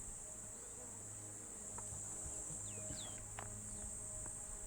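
A steady, high-pitched insect chorus, with a few brief chirps about three seconds in.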